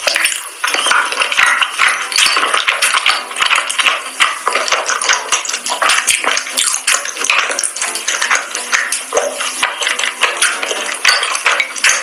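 Close-miked mukbang eating sounds: chewing of sauced seafood with frequent, irregular clicks of wooden chopsticks against a bowl.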